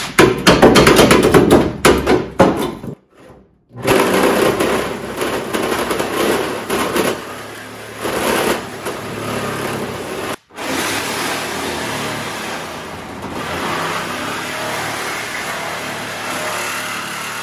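A spot-welded sheet-metal body panel being flexed back and forth by hand, crackling and creaking as the spot welds give. After about three seconds a power tool runs steadily, cutting the body sheet metal.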